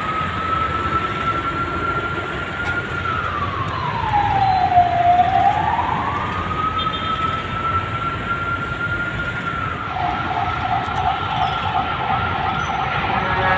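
Emergency vehicle siren passing in street traffic: a slow wail that rises, holds, drops and rises again, then switches about ten seconds in to a fast warbling yelp. Steady traffic noise runs underneath.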